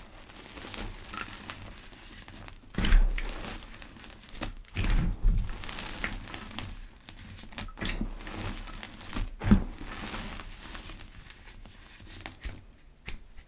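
Gym chalk pebbles being crushed and crumbled between the fingers: irregular soft crackles and crunches, with a few louder crunches about three, five and nine and a half seconds in.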